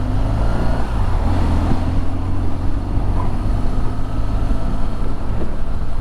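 Motorcycle engine running while riding, with wind rushing over the rider's helmet microphone. The engine note shifts in pitch between one and two seconds in.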